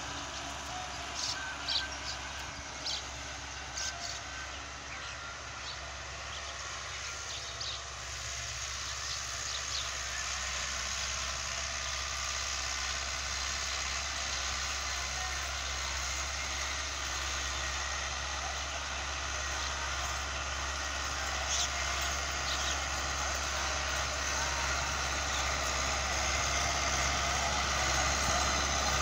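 Euro Ford 5880 tractor's diesel engine running steadily under load while pulling a disc harrow through dry soil, growing louder as the tractor comes closer.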